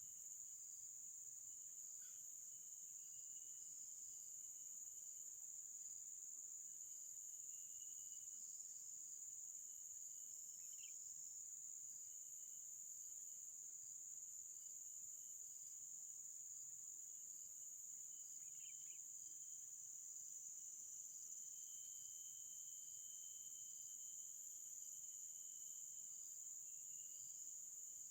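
Faint, steady high-pitched chirring of insects such as crickets, unbroken throughout, with thin high whistled notes coming and going now and then.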